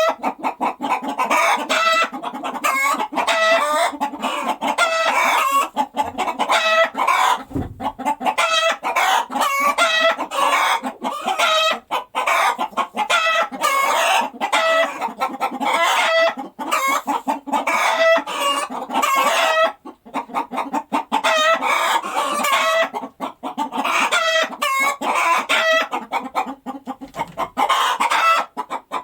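Hens cackling and clucking in a fast, almost unbroken run of repeated calls: the cackle a hen raises just after laying an egg.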